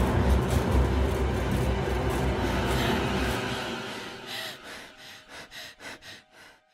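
A low rumbling drone that dies away after about three seconds, followed by quick, shallow, ragged breaths, about three or four a second, that grow fainter and stop: the gasping of a badly injured woman.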